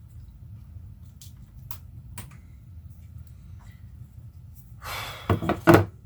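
Light clicks and taps of tools working a glued-in MacBook Pro battery loose. About five seconds in comes a short scraping rustle and two loud knocks.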